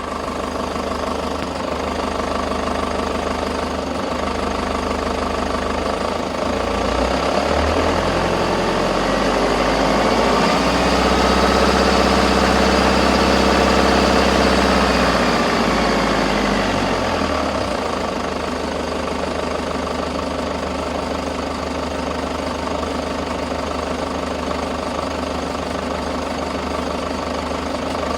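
Toyota HiAce KDH206V's 3.0-litre four-cylinder turbodiesel idling with diesel clatter, mixed with an irregular light jingling rattle like a washer shaken on a bolt, which the owner puts down to hunting: intake air and fuel amounts fluctuating. About seven seconds in the engine speed rises, holds, and settles back to idle about ten seconds later.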